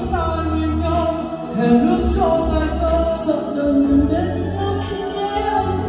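Karaoke singing through a hall's line array sound system: a voice holding long, wavering notes over a backing track with sustained bass notes.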